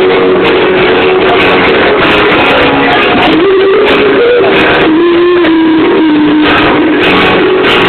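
Live band music: guitars strumming under a held melody line that slides between notes around the middle.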